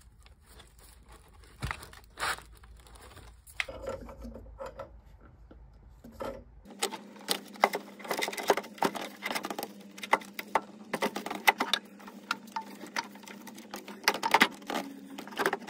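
Scattered clicks and knocks of a plastic boiler pump body and its pressure-gauge clip being handled and pushed into place, busier in the second half, over a faint steady hum from about halfway in.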